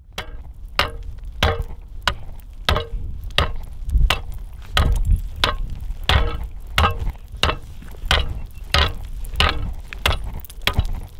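Ice spud bar chiselling into lake ice, a sharp crack about one and a half times a second, some blows with a brief ring. The ice holds under blow after blow: hard ice, thick enough to walk on.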